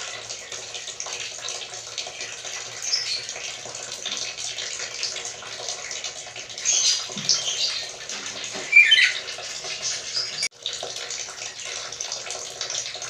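Black-capped lory giving a few short, high calls. The loudest, about nine seconds in, is a falling note. A steady hiss like running water lies underneath.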